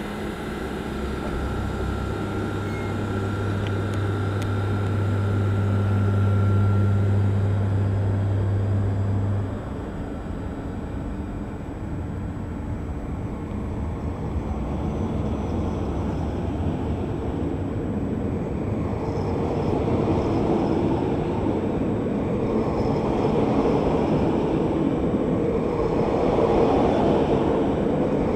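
SNCF BB 7600-series electric locomotive moving off with a train of VB2N double-deck coaches. For the first nine seconds or so a steady low electrical hum from its traction equipment, with a thin high tone, then the hum cuts off. After that the rolling noise of the coaches' wheels on the rails builds as the train gathers speed past the platform.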